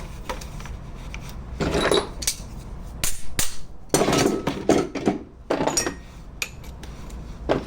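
Metal clanking and knocking of hand tools and engine parts being handled, in about five short bursts with brief metallic ringing.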